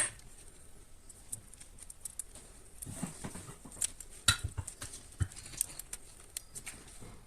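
Sparse, irregular light clicks and taps of small metal parts being handled as the brush springs are fitted back onto the brushes of an Audi A6 C5 heater blower motor, with a few sharper taps a little past the middle.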